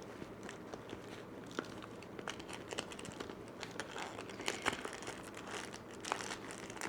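Rustling and light clicks of small items being pushed into a small leather handbag, with some crinkling.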